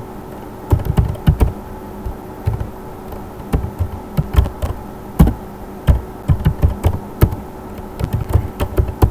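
Typing on a computer keyboard: irregular keystroke clicks in quick runs with short pauses, over a faint steady hum.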